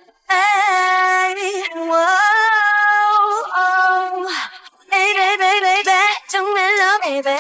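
A woman's solo singing voice, isolated from a pop song with no backing, holding long notes with a wide, wavering vibrato. It comes in just after the start and breaks briefly about four seconds in.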